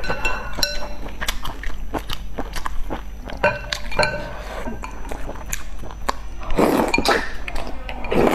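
Chopsticks clinking against a small glass bowl, many quick light clinks each with a short ring. Near the end come two louder slurps of spicy broth sipped from the bowl.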